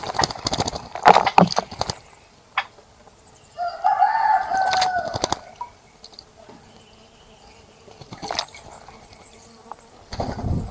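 Small bird splashing and fluttering its wings in a bird bath during the first two seconds, then a rooster crows once, starting about three and a half seconds in and lasting under two seconds.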